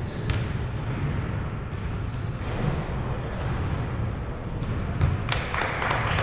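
Basketball bouncing on a hardwood gym floor, with a few short high squeaks of sneakers on the court, over a steady low hum of a large hall.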